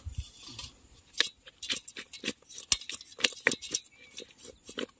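Small fish being tossed with masala powder in an aluminium bowl, with irregular sharp taps and knocks against the metal, several a second.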